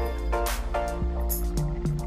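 Instrumental background music with held notes over a moving bass line.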